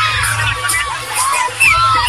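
A large crowd of young people shouting, whooping and cheering over loud music with a pulsing bass.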